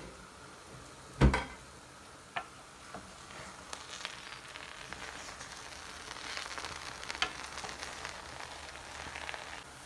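A sharp metal clank about a second in, then the chicken akhni sizzling softly in its pot while a spoon stirs and scrapes through the rice, with scattered light clicks.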